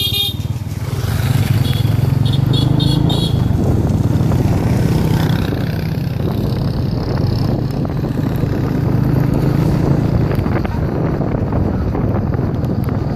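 Motorcycle engine running steadily as the bike rides along, heard from on the bike with road noise.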